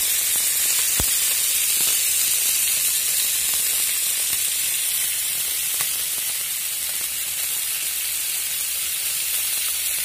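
Masala-coated whole fish shallow-frying in oil in a pan: a steady sizzle with a few small pops, the clearest about a second in.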